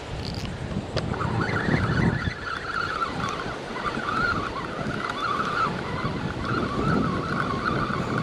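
Wind buffeting the microphone over surf washing on the beach, with a steady high-pitched buzz running underneath.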